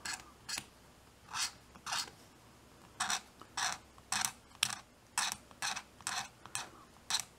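An X-Acto #10 hobby blade scraping down the molded side trim of a plastic model truck body, in about a dozen short scraping strokes, sparse at first and then about two a second from about three seconds in.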